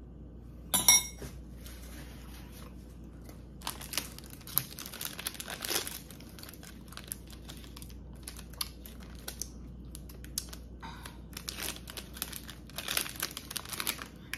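Paper wrapper of an ice cream sandwich being torn open and crinkled, in two spells of rustling and tearing. About a second in, a sharp ringing clink of a spoon on the dishes, the loudest sound.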